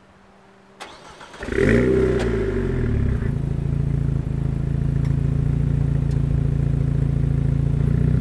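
A 2019 Alpine A110's 1.8-litre turbocharged four-cylinder engine, fitted with the optional sport exhaust, starting up. A click and a brief crank come about a second in, then the engine catches with a loud flare of revs that falls away over a second or two and settles into a steady idle.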